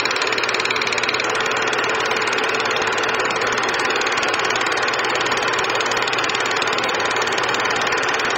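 A steady mechanical running noise with a fast, even rattle, like a machine or engine idling.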